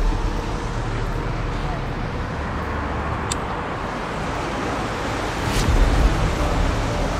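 Steady outdoor rumble and hiss of wind buffeting the microphone over distant city traffic, swelling briefly louder about five and a half seconds in.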